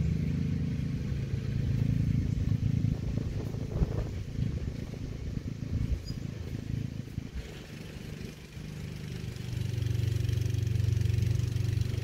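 An engine running steadily with a low hum, easing off about eight seconds in and then coming back louder.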